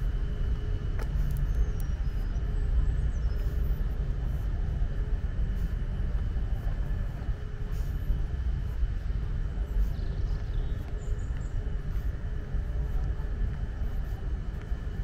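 Steady low rumble of outdoor background noise with a faint steady hum above it and a few faint clicks.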